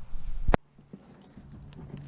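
A low rumble of handling noise ending in one sharp knock about half a second in, like something striking the hull of a small boat, then a quiet, steady background.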